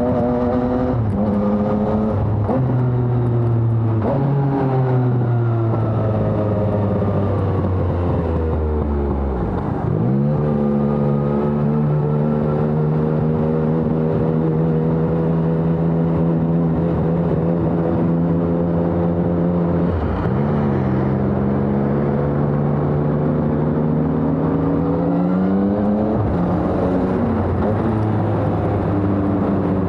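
Yamaha XSR 900's three-cylinder engine through a LeoVince Evo One full exhaust system, ridden on the road. The revs fall for several seconds, then pick up into a steady cruise after a brief break. There is another short break about two-thirds of the way through, and the revs rise and settle near the end.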